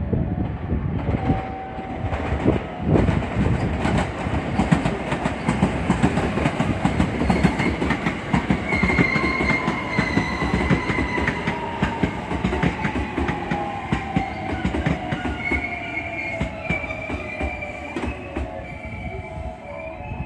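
A commuter electric train moving through the station. Its wheels clatter over the rail joints, with squealing near the middle and end. A motor whine falls slowly in pitch over several seconds as the train slows.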